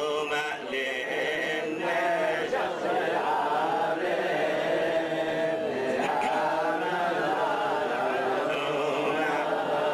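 Men chanting a Jewish liturgical hymn together, one voice leading through a microphone.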